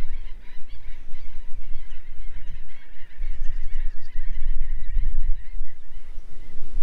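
A large flock of waterbirds calling over one another in a dense, continuous 'kiri kiri kuru kuru' chatter, with wind rumbling on the microphone.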